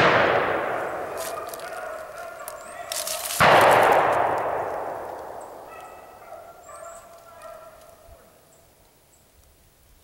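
Two gunshots, one right at the start and a second about three and a half seconds in, each echoing and dying away over several seconds. Rabbit hounds bay on the chase around the shots, fading out about eight seconds in.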